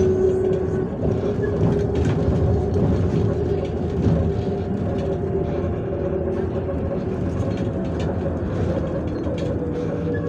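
MAZ 105.465 articulated city bus under way, heard from inside the passenger cabin: the engine and drivetrain run steadily under road rumble, with a held mid-pitched whine and light rattles.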